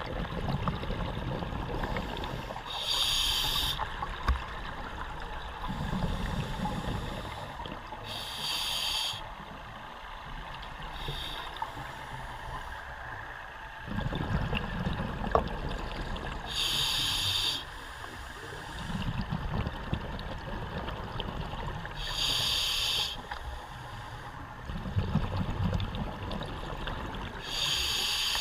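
Scuba diver breathing through a regulator underwater: a sharp hiss with each inhalation, five breaths about five to six seconds apart, and a low bubbling rumble of exhaled air between them.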